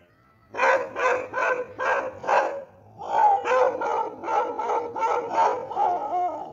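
A dog barking in a rapid series: about five barks a little under half a second apart, a brief pause, then a quicker run of about three barks a second that stops near the end.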